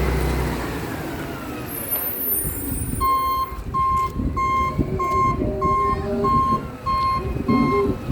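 Garbage truck reversing: its back-up alarm beeps steadily, about one and a half times a second, starting about three seconds in, over the engine and faint wavering scraping squeals that this truck makes when it reverses.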